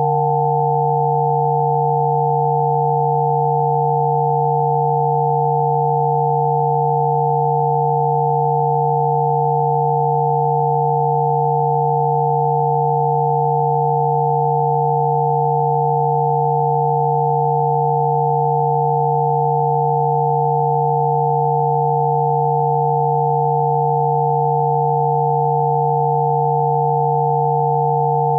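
Synthesized Rife frequency tones: several pure sine tones sounding together, a low hum with three higher steady tones above it, unchanging throughout.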